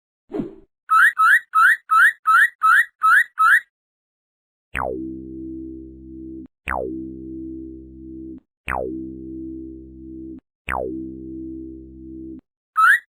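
Synthesized cartoon sound effects: a short low falling sound, then eight quick rising chirps, then four long low tones of about two seconds each, every one starting with a fast downward sweep.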